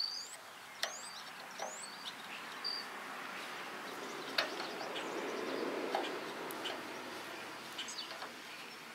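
Small birds chirping, with quick rising calls in the first couple of seconds, over scattered light clicks and rustling of hands working bundled trailer wires with a small red-handled tool.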